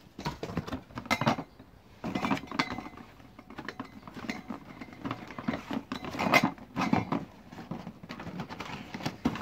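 Cardboard product boxes scraping and bumping against each other as they are lifted out of a cardboard shipping carton: irregular rustling, scraping and knocks, with the sharpest knock a little past the middle.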